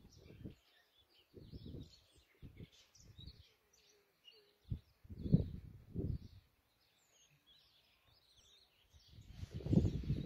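Several small birds chirping in scattered short calls, broken by low rumbling bursts of wind buffeting the phone's microphone, the loudest about five seconds in and near the end.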